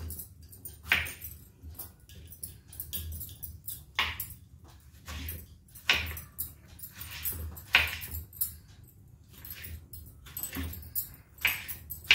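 Knife cutting through tomatoes onto a wooden chopping board: separate sharp knocks and cuts at uneven intervals, a few seconds apart, over a low steady hum.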